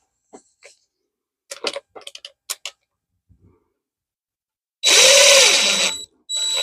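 A few light clicks and knocks, then a power drill runs for just over a second, driving a screw into wood, its pitch rising and then falling. It starts again near the end.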